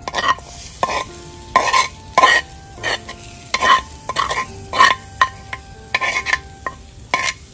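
A spoon scraping chopped greens off a clay plate into a hot metal wok, with about a dozen sharp knocks, several leaving a short ringing tone. The greens sizzle as they hit the oil in the wok.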